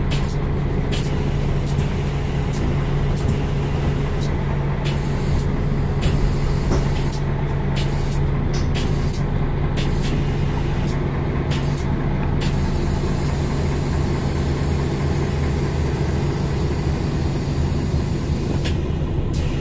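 Mercedes-Benz Citaro bus's 12-litre OM457hLA six-cylinder diesel running at a steady speed, heard from inside the passenger cabin as an even low hum. Frequent short clicks and rattles over the first dozen seconds or so, then a steadier hiss.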